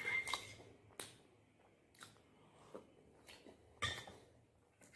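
Mouth sounds of a person chewing a spoonful of sticky, earthy clay slurry: a few short wet clicks and smacks spaced about a second apart, quiet in between.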